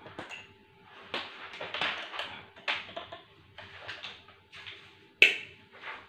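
Irregular clicks, taps and rustles of insulated electrical wire being handled and laid across a wooden wiring board, with one sharp knock about five seconds in. A faint steady hum runs underneath.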